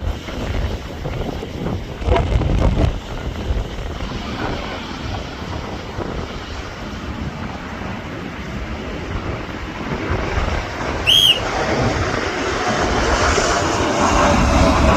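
Strong wind buffeting the microphone, with a jet airliner's engines growing louder over the last few seconds. A short high chirp sounds about eleven seconds in.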